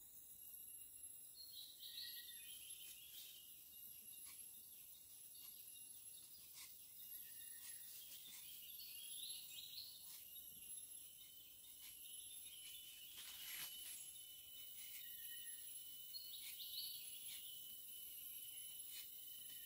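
Faint forest ambience: a steady high-pitched insect drone, with a few short bird chirps now and then and scattered faint clicks.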